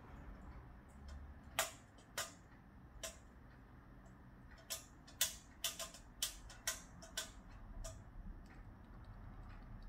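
About a dozen sharp, irregular clicks from a wire-mesh cage trap as the trapped young rat moves against its bars.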